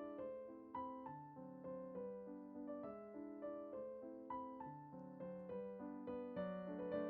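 Gentle background piano music, notes struck at an even pace, each ringing and decaying.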